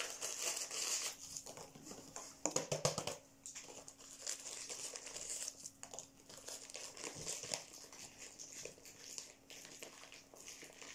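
Packaging being unwrapped by hand: irregular crinkling and rustling of wrapping material, louder near the start and again about two and a half seconds in.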